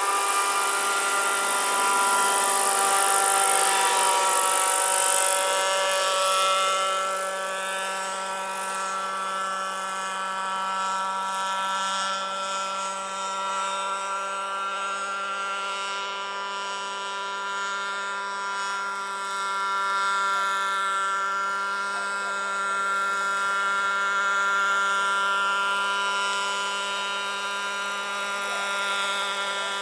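Scale model Sikorsky HO3S-1G helicopter's combustion engine running at a steady pitch in flight. The sound is loudest for the first few seconds and a little quieter after that as the model moves farther off.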